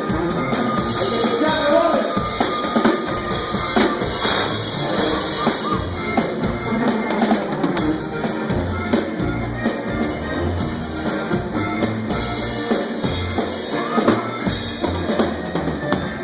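A corrido band playing an instrumental passage without singing, with the drum kit's bass drum, snare and rimshots keeping a steady beat under a low bass line.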